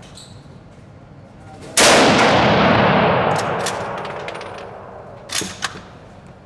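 A single shot from a Mannlicher-Carcano bolt-action rifle about two seconds in, its report echoing and dying away slowly over about three seconds. A couple of short clicks follow near the end.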